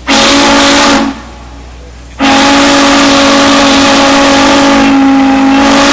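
Steam whistle sounding a loud, steady chord of several notes: one short blast of about a second, then, after a pause of about a second, a long blast.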